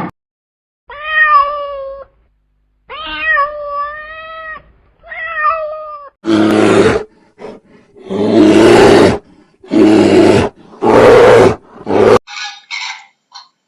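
A series of animal calls: three drawn-out, meow-like cries, then four loud, harsh roaring calls about a second and a half each, then short rapid chirping calls near the end.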